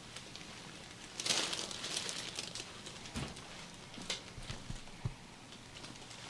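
Massage handling sounds: hands rubbing over skin and clothing, with a burst of rustling about a second in and a few soft low thumps later on.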